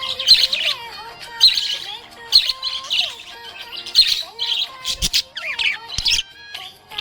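Budgerigar chirping and warbling in a run of short, high chirp bursts, about one a second.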